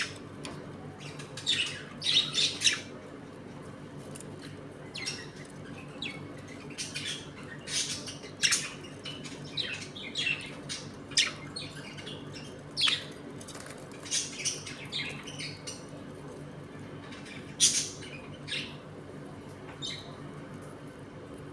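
A flock of budgerigars chattering, with frequent short, sharp chirps and squawks coming in uneven clusters, the loudest about two seconds in and again near the end. A faint steady hum sits underneath.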